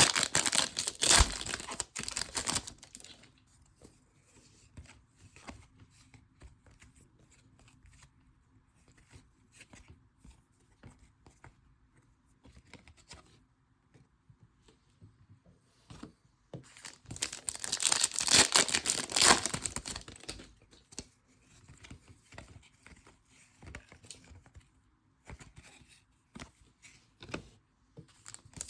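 Trading card pack wrappers being torn open and crinkled: two loud stretches of tearing, one at the start and one about seventeen seconds in, with faint rustling and clicking of cards being handled in between.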